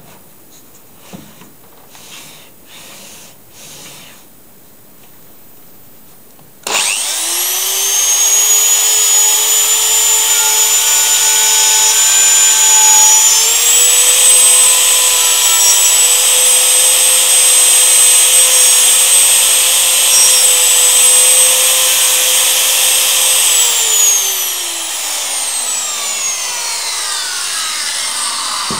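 A handheld electric plunge router routing a mortise slot in a wooden bar. After a few light handling clicks it is switched on about a quarter of the way in and gets up to speed almost at once, running with a loud, steady high whine that steps up slightly in pitch partway through. Near the end it is switched off and winds down with a falling whine.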